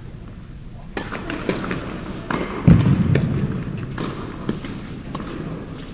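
Irregular sharp knocks of tennis balls bouncing and being hit, echoing in an indoor tennis hall, with one heavier low thud about three seconds in.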